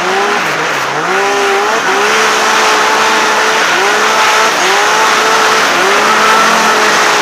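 Turbocharged Yamaha Nytro snowmobile's four-stroke triple engine under load on a steep snow climb, its pitch rising and dipping again and again, sometimes held high for a second or more, over a steady hiss.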